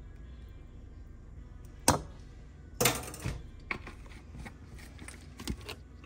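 Kitchen utensils clinking and tapping, such as a spoon against a pot. There is one sharp click about two seconds in, a cluster of knocks about a second later, and then a few scattered lighter clicks.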